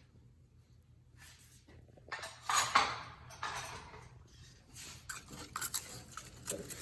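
Kitchenware being handled: a rustling clatter about two to three seconds in, then a few short sharp clicks and knocks near the end.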